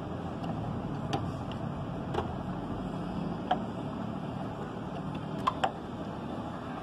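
Several short, sharp plastic clicks and taps as hands handle parts inside a Dell desktop computer case, two in quick succession near the end, over a steady rushing background noise.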